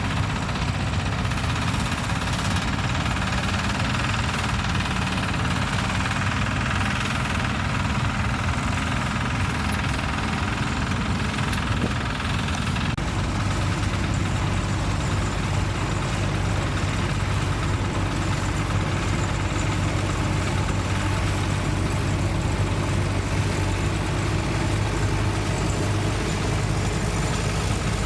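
Tractor engine running steadily, with a stronger low hum setting in about halfway through.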